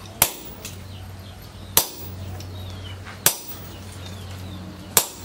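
Four heavy hammer blows, about a second and a half apart, on a tongs-held set tool pressed against red-hot leaf-spring steel on an anvil, each a sharp metallic strike with a short ring.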